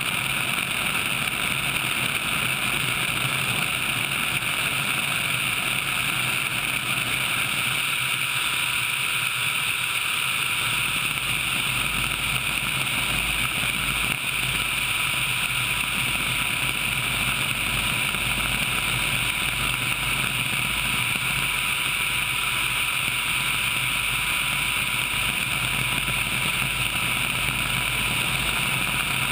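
Sikorsky HH-60 Pave Hawk helicopter in flight, heard from a camera mounted outside the fuselage: a steady rushing noise of engines, rotors and passing air, with a thin constant whine through it.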